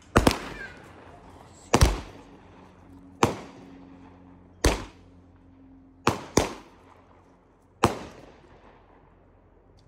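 Consumer fireworks going off in a series of about eight sharp, loud bangs, roughly one every second and a half with a couple in quick pairs, each trailing off in a short echo.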